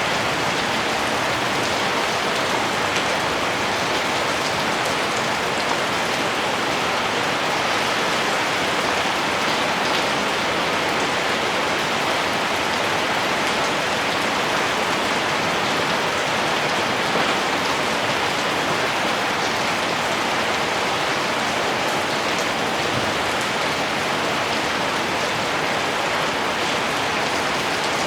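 Heavy rain falling steadily: a dense, even hiss with faint ticks of individual drops.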